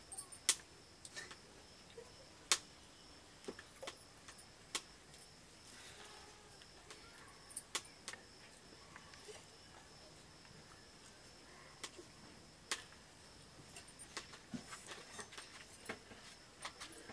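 Scattered light clicks and clinks of stainless steel plates, bowls and cups being handled during a meal eaten by hand, growing more frequent near the end, over a faint steady high tone.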